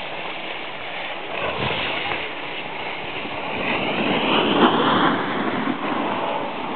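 Skis sliding and scraping over packed snow, with wind rushing on the microphone; the noise swells about four seconds in.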